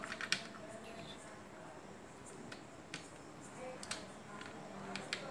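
Hard plastic parts of a toy air gun's mechanism clicking and tapping as they are handled and fitted into the opened plastic shell: a quick cluster of clicks at the start, then single clicks every second or so.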